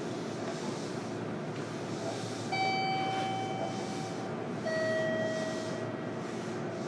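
Steady hum and hiss inside a JR Kyushu 305 series electric train car, with no sound of running. Two held tones sound over it: a higher one for about a second, then a lower one about two seconds later.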